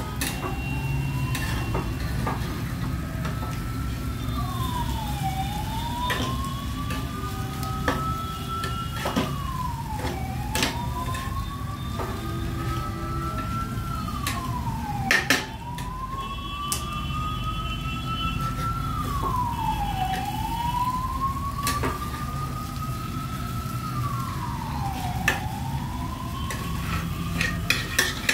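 A siren wailing, its pitch rising slowly and then falling quickly, over and over about every five seconds. A metal spoon clinks and scrapes against a steel pan as cooked egg is stirred.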